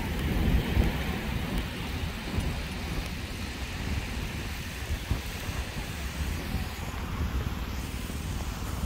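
Wind buffeting the microphone in an uneven low rumble, over a steady rushing hiss of outdoor noise.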